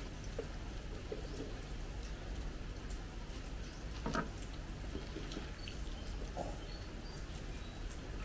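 Birds calling faintly in the open air, with a few short high notes, over a steady low background rumble.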